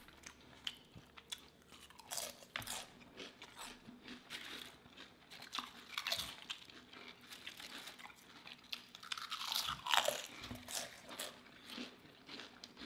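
Close-up eating sounds: potato chips crunching and sandwiches being chewed, a steady run of crisp crunches with a few louder bites.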